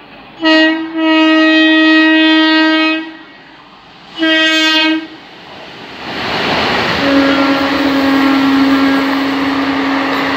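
Horn of a WAP-4 electric locomotive sounding a short blast, a long one and another short one as it approaches. From about six seconds in, the locomotive and its ICF coaches rush past at speed, and the horn sounds one long steady note again, now lower in pitch, over the noise of the passing train.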